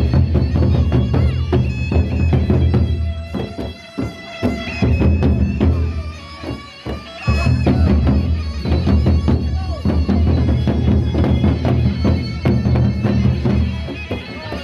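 Gendang beleq ensemble playing: large double-headed barrel drums struck with sticks and hands in a dense, driving rhythm, over a sustained reedy wind drone and melody. The music thins out briefly about four seconds in and again around six to seven seconds.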